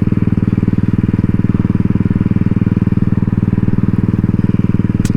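Royal Enfield Classic 350's single-cylinder engine running at a steady cruise through a loud aftermarket exhaust, an even train of low thuds that holds one pitch. A short click near the end.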